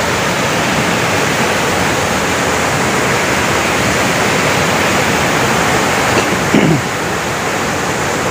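Waterfall with a strong current, a steady loud rush of falling water. A brief falling tone cuts in about six and a half seconds in.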